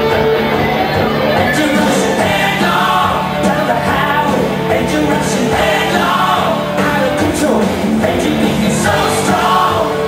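Loud song with a singer over a steady beat, accompanying a dance routine.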